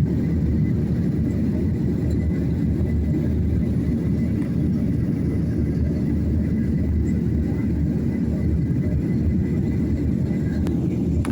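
Steady low rumble of an airliner's engines and airflow heard inside the passenger cabin, with a faint steady high tone over it and a couple of small clicks near the end.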